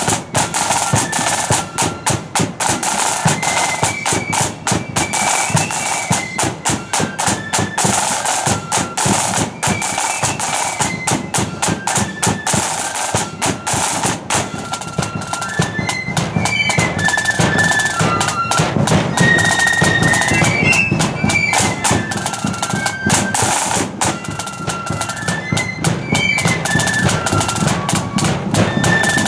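A marching flute band playing a tune: flutes in unison carry a stepping melody over rapid snare-drum beating and a bass drum.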